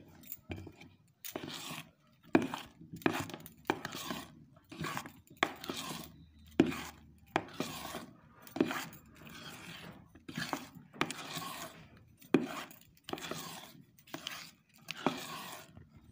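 Metal spoon stirring thick cake batter in a steel bowl, scraping and knocking against the bowl in repeated strokes about two a second.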